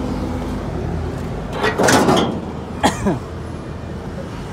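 The hood of a Kubota L3001 tractor being lifted: a scraping rattle about two seconds in, then a short squeak that falls in pitch about a second later, over a steady low hum.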